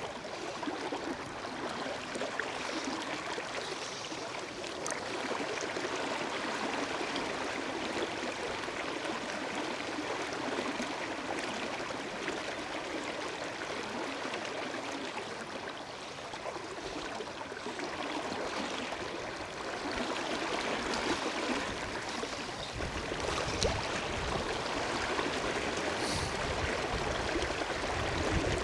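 River water rushing steadily over a riffle. From about two-thirds of the way in, gusts of wind buffet the microphone with a low, uneven rumble.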